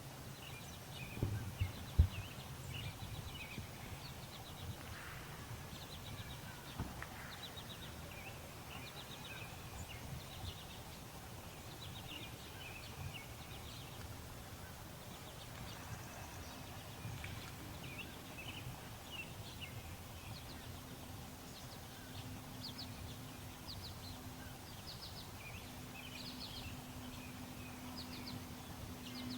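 Small birds chirping and trilling in short repeated phrases, with a few low thumps about two seconds in and a low steady hum joining about halfway through.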